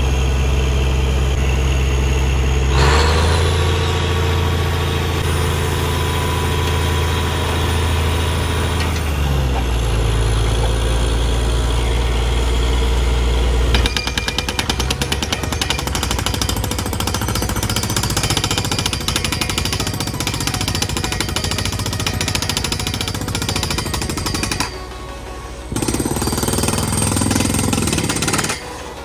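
Truck-mounted borewell drilling rig at work: its engine and air compressor run steadily for about the first half, then the down-the-hole air hammer takes over with a fast, continuous rattling hammering as the bit cuts rock. The sound drops out briefly twice near the end.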